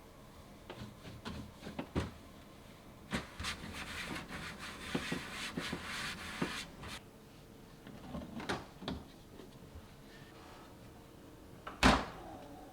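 Kitchen handling sounds while a fridge is being cleared out: scattered clicks and knocks of containers being picked up and set down, a stretch of rustling and scraping in the middle, and one loud thump near the end, like a door or drawer being shut.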